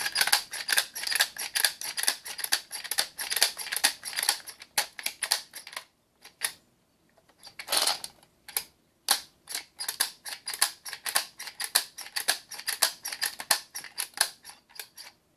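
Rapid clicking of .22 LR cartridges in a Lexan magazine loader as the rounds are fed into a rimfire magazine, with a short pause about six seconds in, a longer rattle about eight seconds in, then more quick clicks.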